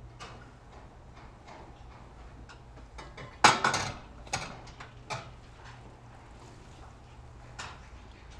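Holstein dairy cows feeding at a steel headlock feed rail: scattered small knocks and rustles, then a loud clatter of the metal bars about three and a half seconds in as a cow moves its head in the headlock, followed by a few lighter clanks.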